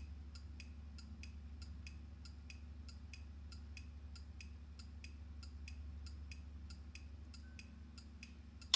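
Turn-signal flasher relay clicking steadily, about four clicks a second, over a steady low hum, with one louder click near the end.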